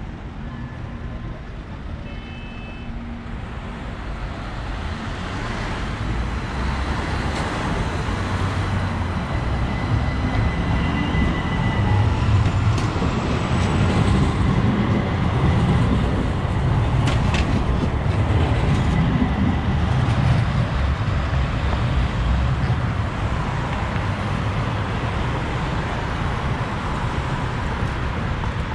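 A low-floor tram running past close by on its rails. The rumble builds over several seconds, peaks as it passes and holds, with a couple of sharp clicks midway and road traffic around.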